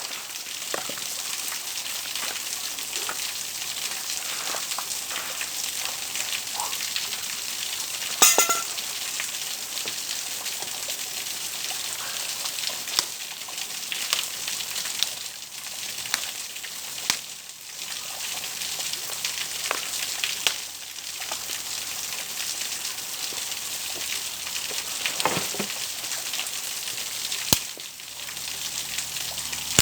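Steady high hiss with scattered snaps and clicks, a sharper crack about eight seconds in and another near the end.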